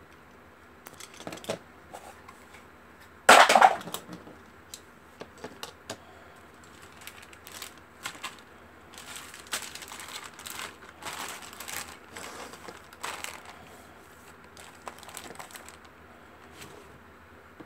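Clear plastic bags of model-kit parts crinkling and rustling as they are handled and laid out, in irregular bursts, with one much louder burst of rustling about three seconds in.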